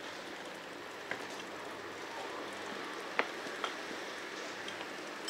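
Bicycle rolling along a paved street: a steady hiss of tyres and air, with a few short sharp clicks about a second in and twice more past the three-second mark.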